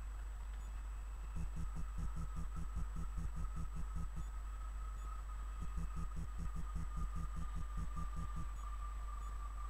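Steady low hum with a faint, thin whine from a distant approaching electric train, coming in about a second and a half in and sinking slowly in pitch.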